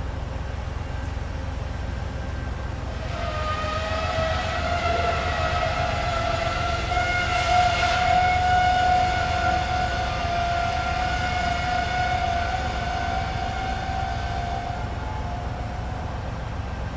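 Diesel freight locomotive's air horn sounding one long blast of several chords together, starting about three seconds in, sliding up slightly as it begins, loudest in the middle, and stopping a second before the end. A low engine rumble from the approaching train runs underneath.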